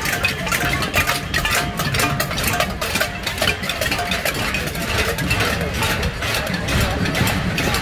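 Many pots and pans being banged by a marching crowd: a dense, irregular clatter of metal strikes over a steady low rumble.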